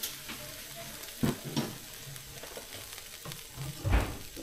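Meat sizzling on a wire grill over charcoal, with a few sharp clacks of metal tongs as pieces are turned; the loudest clack comes near the end.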